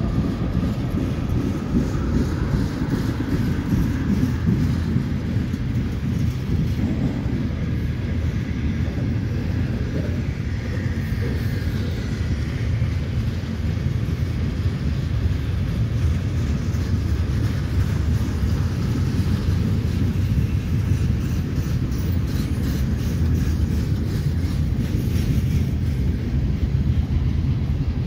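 Freight train cars rolling past, a steady low rumble of steel wheels on rail, with a regular clacking of wheels over rail joints in the second half.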